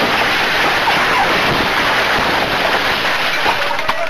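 Loud, steady rushing noise on a bus's onboard surveillance camera microphone, with no clear pitch or rhythm.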